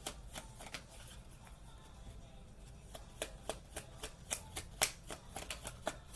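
Tarot cards being shuffled and handled: a run of crisp, irregular card flicks and slaps, sparse at first and thicker from about halfway.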